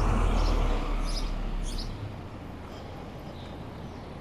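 Street noise: a vehicle passing with a low rumble that fades out about two seconds in, with a couple of short high bird chirps over the steady city background.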